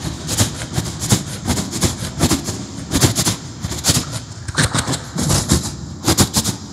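A man's vocal imitation of a train running at speed: rhythmic mouth-made clattering and hissing bursts, about two to three a second, over a low rumble, mimicking the clickety-clack of wheels on rail joints.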